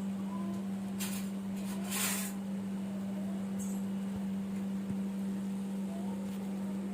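Two short sizzles, about one and two seconds in, as a little sesame oil hits a dosa cooking on a hot tawa, over a steady low hum.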